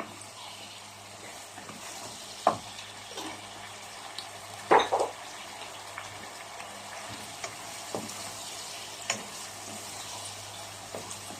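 Sweet and sour chicken with vegetables sizzling steadily as it simmers in a pan. A spatula knocks and scrapes against the pan several times while stirring, loudest about five seconds in.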